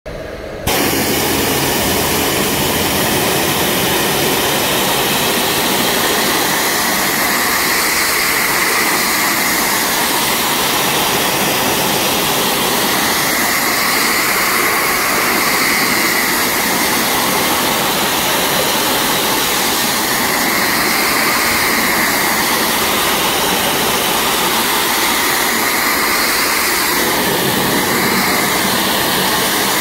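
Loud, steady hiss of a pressure washer's water jet blasting into a finned coil, with the splash swelling and easing every six seconds or so as the spray moves across the fins.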